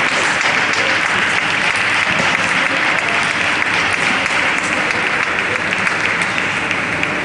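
Spectators in an arena applauding, a steady dense clapping that eases slightly near the end.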